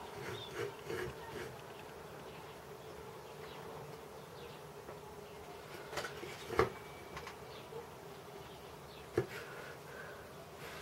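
A steady buzzing hum with a few sharp clicks, the loudest about six and a half seconds in and another about nine seconds in, fitting a knife cutting into wood during chip carving.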